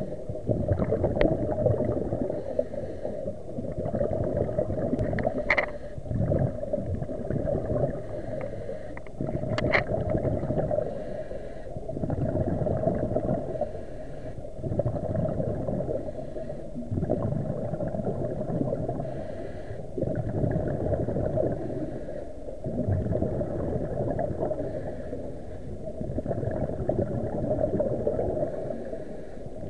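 Underwater noise picked up by a submerged camera: a muffled, steady water rush that swells and eases every few seconds, with two sharp clicks, one about five seconds in and one near ten seconds.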